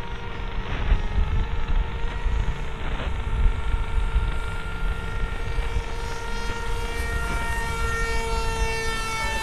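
Electric brushless motor and pusher propeller of an S800 Sky Shadow FPV flying wing, whining steadily as it flies; the whine grows stronger and brighter in its upper tones about seven seconds in. Under it is an uneven low rumble of wind on the microphone.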